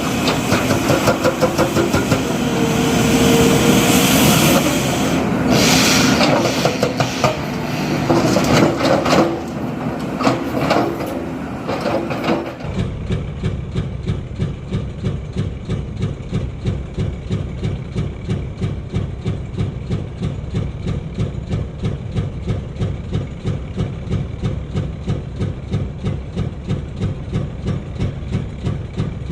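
Heavy diesel machinery working loudly, with a steady engine drone and clanks. About halfway through it cuts sharply to a diesel engine running steadily with a fast, regular pulse.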